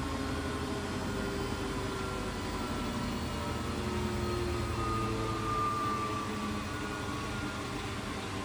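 Beko WMB71643 PTSI washing machine spinning its drum, its ProSmart Inverter motor whining over a steady rush of the turning drum. The whine drifts slowly down in pitch as the spin speed eases.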